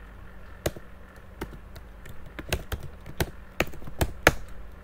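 Computer keyboard keystrokes: about eight sharp, irregularly spaced key presses, the loudest near the end, over a faint steady low hum.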